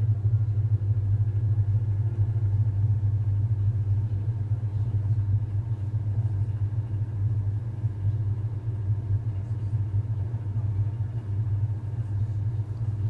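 Norwegian Forest Cat purring steadily, a close, low rumble.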